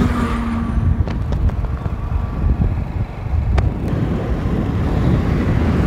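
Wind buffeting the microphone of a moving vehicle, a heavy uneven rush with road and engine rumble underneath. There is a single click a little past halfway.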